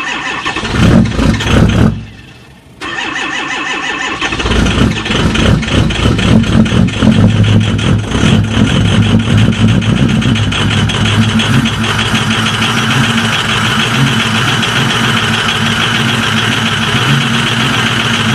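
A large engine cold-starting: it turns over with uneven firing, stops abruptly, then catches after a few seconds. It fires raggedly at first and settles into a steady run.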